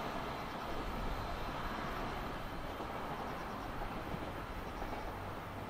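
Freight train receding down the line, the rolling rumble of its wagons on the rails steady and slowly fading.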